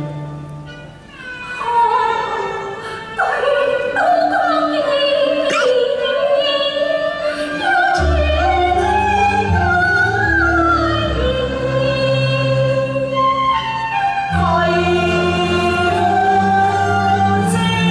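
Cantonese opera singing: one voice sings a long, sliding and wavering melodic line over the accompanying instrumental ensemble. Low sustained accompaniment notes come in about eight seconds in.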